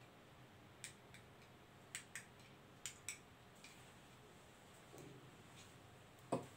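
Near silence: quiet room tone with a few faint, irregularly spaced clicks and one soft thump near the end.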